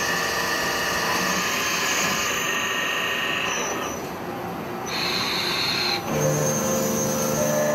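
CNC turn-mill machining centre cutting a metal part: a steady whine and hiss of tool and coolant that shifts abruptly to a different pitch and texture several times.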